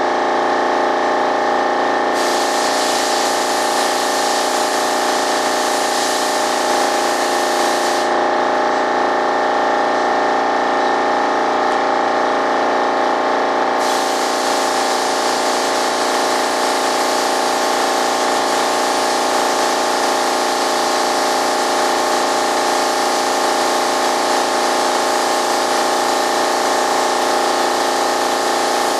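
Shop air compressor running steadily with a layered hum, under the hiss of an air spray gun laying on primer. The spray hiss stops for the first couple of seconds and again for about six seconds a third of the way in, then resumes.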